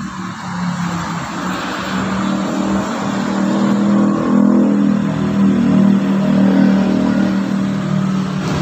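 Motor scooter engine running steadily, getting a little louder and higher between about three and seven seconds in.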